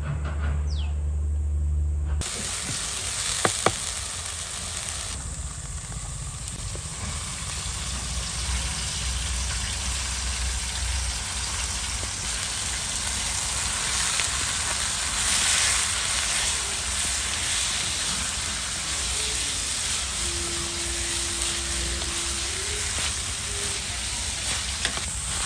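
Minced lamb sizzling in a hot pan as it is tipped in and stirred with a spatula, a steady frying hiss. The sizzle sets in about two seconds in, with two sharp knocks just after.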